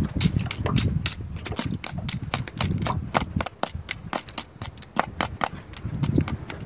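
Knife blade scraping and prying barnacles off a young sea turtle's shell: a rapid run of sharp clicks and cracks of shell, several a second, over a low uneven rumble.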